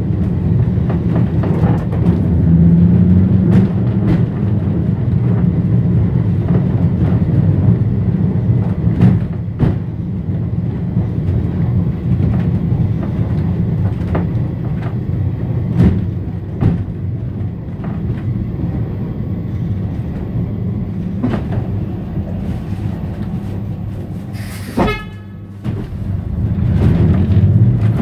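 Electric heritage tram running on its rails, heard from inside its wooden saloon: a steady low rumble of motors and wheels with scattered clicks and knocks from the track and body. About three-quarters of the way through comes a brief ringing sound, and the running goes quieter for a moment.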